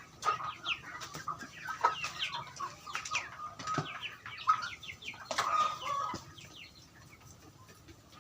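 A flock of laying chickens clucking and calling, many short overlapping calls; the calling dies down to a faint level about six seconds in.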